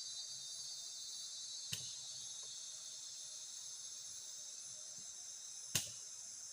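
A steady, high-pitched chorus of forest insects chirring. Two sharp clicks cut through it, one about two seconds in and a louder one near the end.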